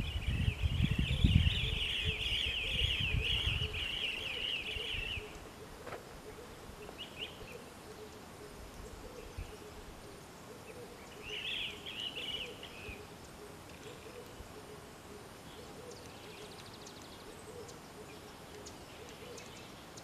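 African grey hornbills calling: a rapid chattering series of high notes for about five seconds, then two short bursts of the same, about seven and twelve seconds in. A low rumble sits under the first few seconds.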